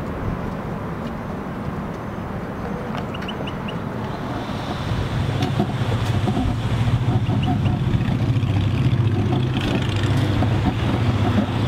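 City street ambience: car traffic with wind buffeting the microphone, the low rumble growing stronger about halfway through.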